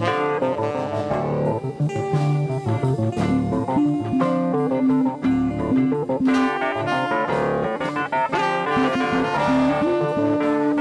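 Live band playing an instrumental passage: electric guitars over keyboard and drums, with no singing.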